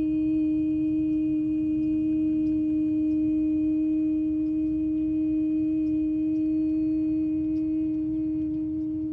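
A singing bowl sounding one steady, sustained low tone with fainter overtones, held without a new strike throughout.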